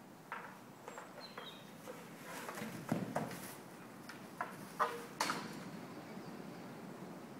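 A stallion nosing a large play ball around a sand pen: irregular knocks and thumps from the ball and his hooves, the sharpest about three seconds and five seconds in.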